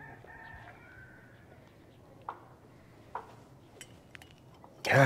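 A faint, drawn-out animal call during the first second or so, then two light clicks, and a loud breathy burst near the end, like a sharp breath or gasp.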